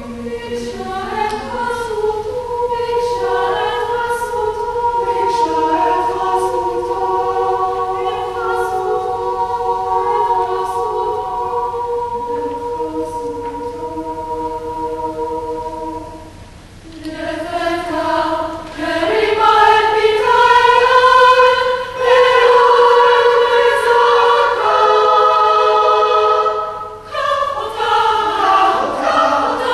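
Choir singing held chords. About halfway through, the singing thins out briefly, then comes back louder.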